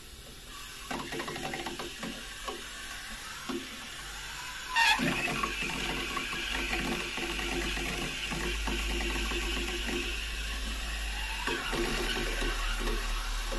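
Water flowing in through the filling valve of an ECA Calora Premix combi boiler, raising system pressure from near zero, the cure for its F47 low-water-pressure fault. Scattered light clicks at first, then a sudden knock about five seconds in, after which the flow runs as a steady hiss.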